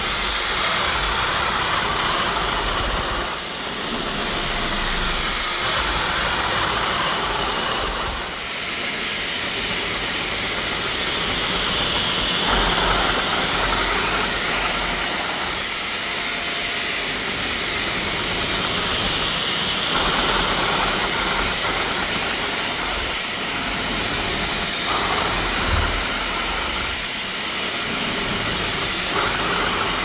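Bosch Unlimited Serie 6 Pro Animal cordless stick vacuum running with its motorised ProAnimal brush head on carpet, picking up pet hair. A steady motor whine, its tone shifting every few seconds as the head sweeps back and forth.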